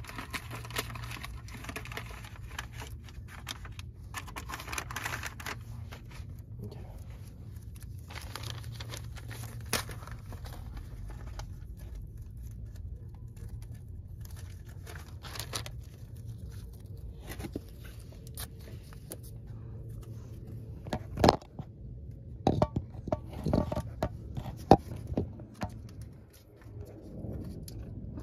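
Newspaper crinkling and masking tape being pulled off the roll and torn as a brake caliper is masked off for painting, with a few louder sharp snaps in the last third, over a steady low hum.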